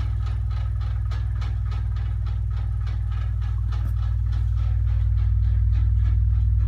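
Dayton Audio RS1200K 12-inch subwoofer playing a 20 Hz test tone, heard as a steady deep drone that grows a little louder toward the end. Faint, fast, even ticking runs over it: something in the kitchen rattling from the vibration.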